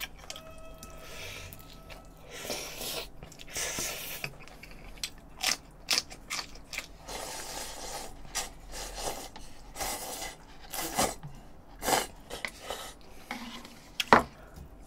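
Close-miked eating sounds: irregular chewing, smacking and slurping, with chopsticks clicking and scraping against a metal pan, and a sharp tap near the end.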